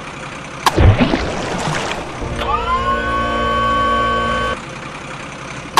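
Repeating vehicle sound effect: a sudden loud, noisy burst about a second in that fades away, then a steady horn-like tone that glides up and holds for about two seconds. The same burst starts again at the very end.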